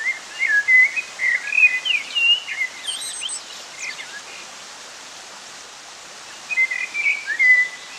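A songbird singing in quick, jumpy whistled phrases, first for about three seconds and again near the end, over a steady rush of falling water.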